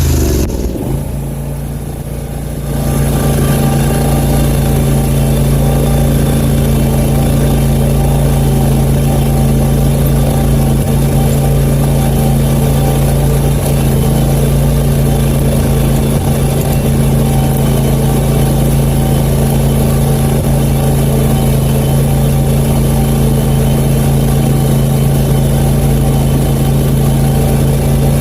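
Zero-turn riding mower's engine running steadily at a constant speed. The sound dips quieter for a couple of seconds near the start, then holds even.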